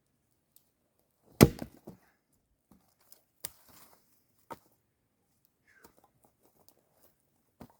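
Firewood being chopped: a hard strike about a second and a half in, the loudest, then lighter blows around three and a half and four and a half seconds, with small knocks of wood between.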